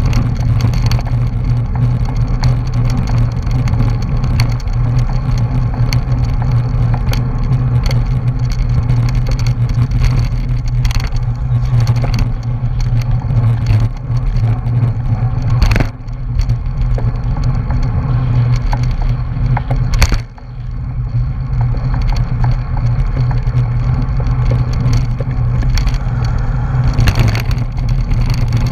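Wind buffeting an action camera's microphone on a racing bicycle moving fast in a pack: a loud, steady low rumble mixed with road and tyre noise. A couple of sharp knocks stand out about sixteen and twenty seconds in.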